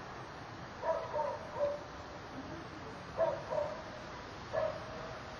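A dog barking in short yips: a quick group of about three about a second in, two more a little after three seconds, and one more near the end.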